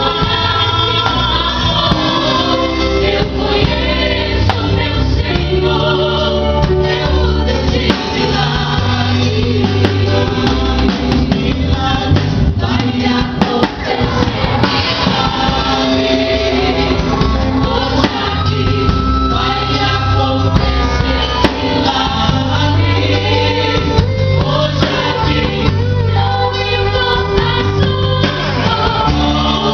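Gospel worship song: several voices singing together over a band with a prominent, shifting bass line.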